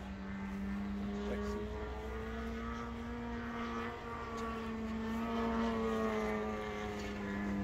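120-inch Bushmaster giant-scale RC model airplane flying overhead: a steady propeller drone whose pitch wavers slightly, a little louder about two-thirds of the way through.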